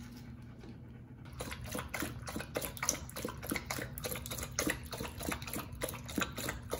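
Golden retriever lapping water from a stainless steel bowl: a quick, steady run of wet laps, about four a second, starting about a second in.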